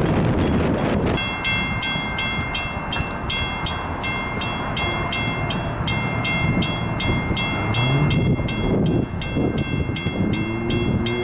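A railroad grade-crossing bell starts ringing about a second in, a steady, even ding about three times a second, over a low train rumble. Near the end a low, steady horn begins to sound.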